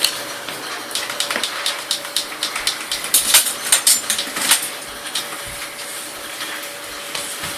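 Toy dishes and utensils clicking and clattering as they are handled, with a dense run of sharp clicks about three to four and a half seconds in.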